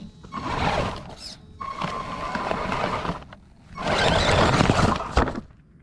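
American bison grazing right at a ground-level camera, its muzzle in the grass against the microphone: three loud bursts of rustling, snuffling noise with short quiet gaps between.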